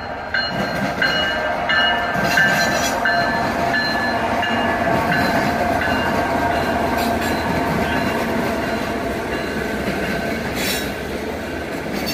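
Union Pacific freight train passing close by: the diesel locomotives' engines running as they go past, then the freight cars rolling along the rails, with high whining tones over the rumble.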